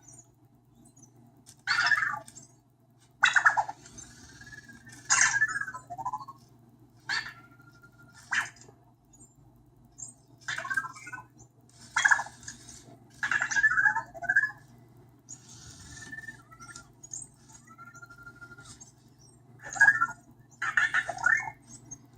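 Anki Vector home robot sounding its electronic chirps and beeps: about a dozen short bursts of bird-like twitters and gliding tones, a few ending in a brief held beep. A faint steady low hum runs underneath.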